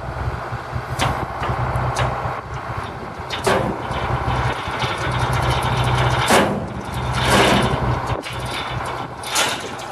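Excavator's diesel engine running steadily as it holds the gantry up, with six brief sharp noises spread through, a couple of seconds apart.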